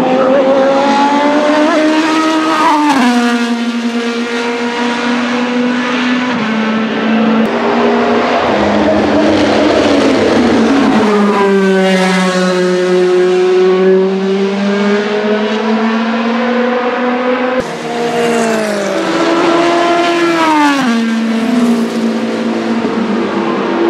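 Gibson GL458 4.5-litre V8 of a Vanwall Vandervell 680 Le Mans Hypercar racing on track: the engine note holds at high revs, then drops in steps at gear changes, sweeps past once around the middle, and falls away again near the end.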